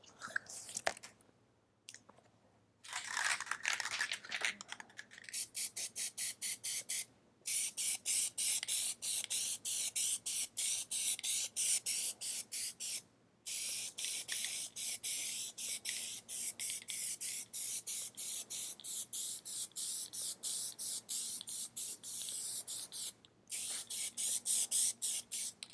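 Aerosol can of black Plasti Dip rubber coating spraying a light first tack coat, a hiss that comes in quick short pulses with a few brief breaks.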